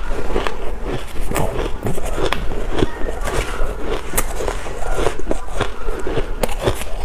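Close-miked crunching of shaved ice being chewed, with a metal spoon scooping through the soft ice in a metal pan; many irregular sharp crunches and scrapes, several a second.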